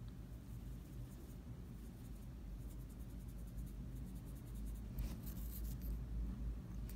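Faint scratchy strokes of a small nail-art brush rubbing and blending powdered pigment over gel paint on a fingernail, over a low steady hum.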